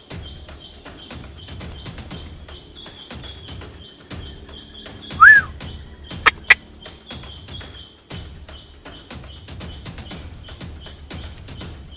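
Tropical forest insects chirring in a steady, evenly pulsing chorus. About five seconds in comes one loud, short call that rises and falls, and a second later two sharp clicks in quick succession.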